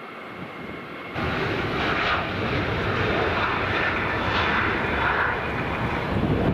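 Jet aircraft engines running, quieter at first and then jumping suddenly to a loud, steady rushing noise about a second in.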